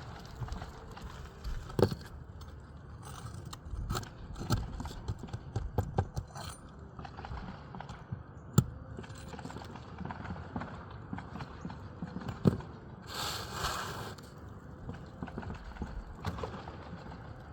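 Irregular knocks, taps and scrapes of hand-tool work on an asphalt shingle roof, with a few sharper hits standing out and a short rustling scrape a little past the middle.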